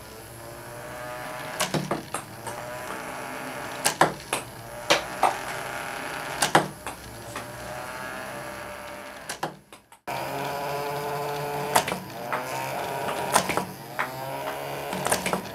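Small DC motors spinning the two toy wheels of a homemade ping-pong ball pitching machine, a steady whine that sags in pitch and recovers each time a ball is fed between the wheels and shot out with a sharp click. This happens several times; the whine stops briefly about ten seconds in and starts again.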